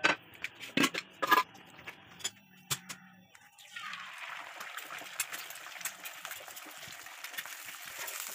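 A few sharp knocks and clinks of a frying pan on a gas stove. A little under four seconds in, an egg goes into hot oil and starts sizzling steadily.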